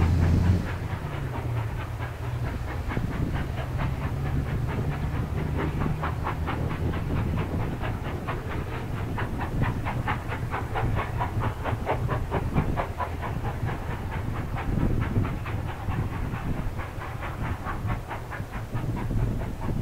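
A horn note cuts off about half a second in. Then passenger carriages roll past with a fast, regular clicking of wheels over rail joints, and the trailing 422-class diesel locomotive's engine runs as it goes by.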